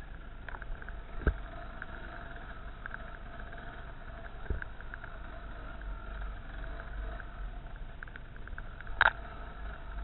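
Dirt bike engine running steadily while riding a rough trail, broken by short knocks from the bike over bumps and stones: one about a second in, one near halfway, and the loudest, a sharp crack, near the end.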